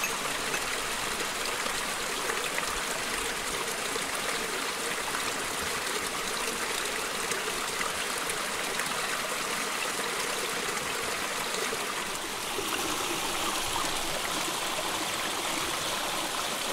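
Mountain stream flowing over rocks: a steady running and trickling of water.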